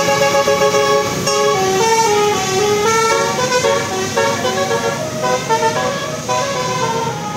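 Bus telolet horn, a set of air-horn trumpets playing a fast tune of short stepped notes, several sounding together as chords.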